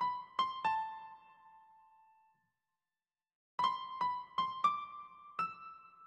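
Background music: a slow solo piano melody of single struck notes that ring out and fade. A couple of notes come about half a second in, then a silence of about a second, then a phrase of five notes.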